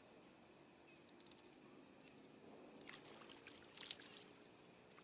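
Near silence, broken by a few short, high-pitched clicking bursts spaced about a second apart over a faint steady low hum.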